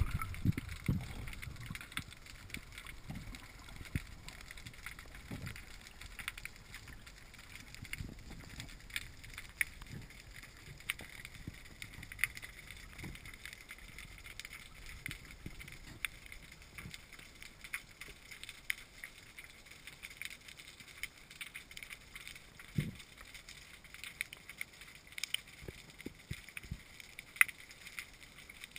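Muffled underwater sound picked up by a camera in its waterproof housing beneath the sea: scattered small clicks and crackles, with a few soft low thuds, one more noticeable about 23 seconds in.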